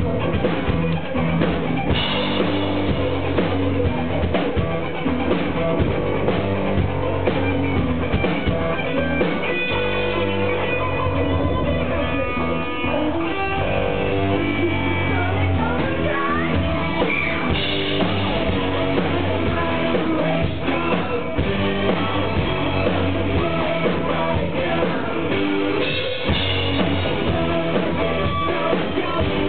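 Live rock band playing, with drum kit, guitar, synthesizer and a singer, heard from the crowd. The recording sounds muffled, with no high end.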